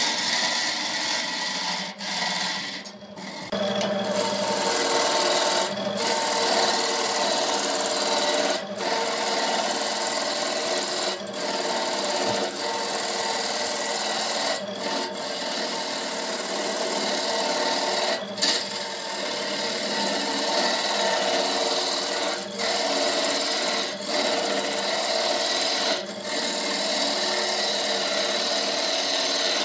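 Wood lathe running while a hand tool scrapes and rubs against a spinning workpiece made from pencils. The contact breaks off briefly every few seconds, once for nearly a second a few seconds in.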